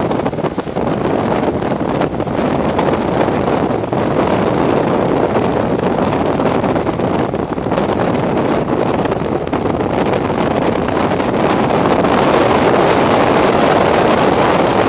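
Strong wind rushing steadily over the camcorder microphone, a loud even roar that cuts off suddenly at the very end.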